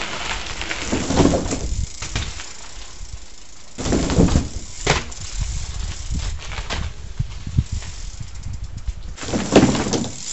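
A bicycle rides over homemade wooden pallet-and-plywood ramps: the tyres rumble over gravel, the boards knock and rattle under the wheels, and a loud thump comes near the end.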